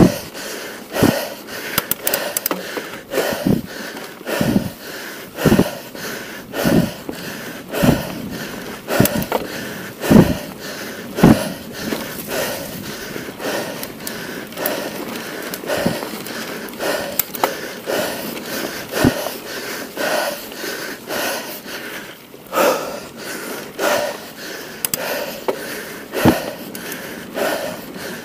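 A mountain biker's heavy, wheezing breathing from exertion: loud breaths that fall in pitch, about one a second at first and then more spaced out. Faint clicks and rattles from the bike on the dirt trail sit under a steady rush of wind.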